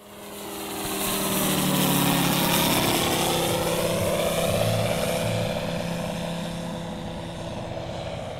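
Propeller engine of a radio-controlled model Messerschmitt M23c flying past overhead. It fades in, is loudest about two seconds in, then its pitch slowly drops as it flies away and fades.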